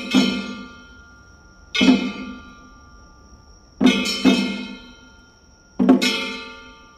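A festival drum and a ringing metal gong struck together for the kawafune boat float's rhythm. The hits fall about every two seconds, several of them doubled, and each one rings out slowly.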